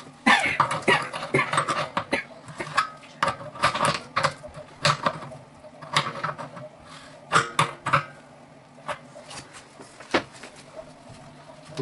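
Adjustable wrench clinking and scraping against brass pipe fittings: a run of sharp metal clicks and knocks that thins out after about eight seconds, with one more knock about ten seconds in.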